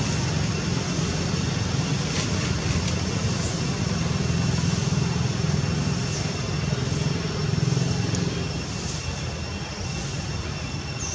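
A steady low rumble, easing a little about eight seconds in, with a faint high steady whine above it.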